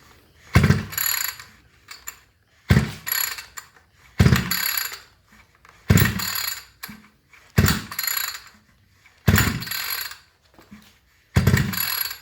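Recoil pull-starter of a 65 cc two-stroke multi-tool yanked seven times, about one pull every second and a half, each a sudden rattling rasp of cord and ratchet that dies away without the engine firing. The flywheel only turns once or twice per pull instead of spinning through, so the engine won't start.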